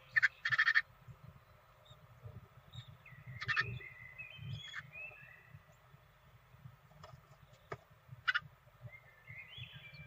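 Great tits at the nest inside a nest box. There is a loud burst of scratching and tapping about half a second in and a few single knocks later, with short soft high chirps now and then and a run of them near the end.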